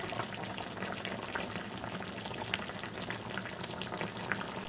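Braising liquid simmering around salmon pieces in an uncovered clay pot: steady bubbling with many small scattered pops. The heat is turned down to medium so the liquid reduces slowly.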